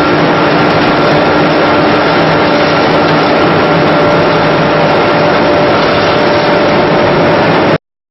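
Sawdust pellet production line running: a loud, steady machine din with a few steady tones through it, cutting off suddenly near the end.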